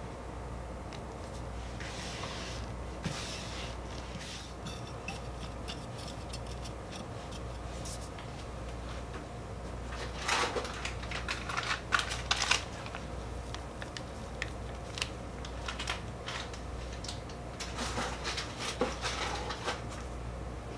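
Hands working powdered gym chalk and small reformed chalk blocks: soft brushing with scattered crisp crackles and taps. A louder burst of crackling comes around ten seconds in and another near the end.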